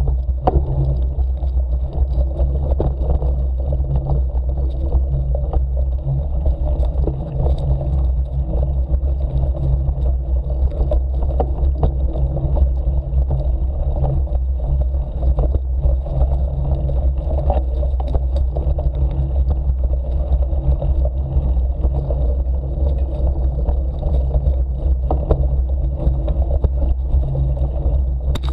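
A bike-mounted camera rides over a rough forest dirt trail, giving a steady low rumble with frequent small knocks and rattles from the bumps.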